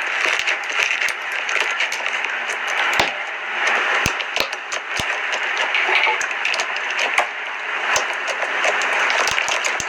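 Slime being squished and worked: a continuous crackling noise with many small sharp pops and clicks scattered through it.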